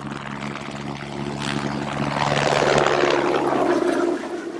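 Logo-animation sound effect: a whooshing swell over a steady low hum. It builds to its loudest about three seconds in, then fades away.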